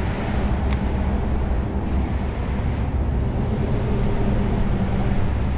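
Steady road-traffic noise from the bridge overhead, with one short sharp click about three quarters of a second in.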